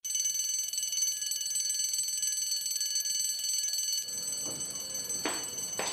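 Electric bell ringing continuously, a steady metallic ring that starts abruptly. It is the signal that break time is over. About five seconds in, a couple of short, noisy swishes join it.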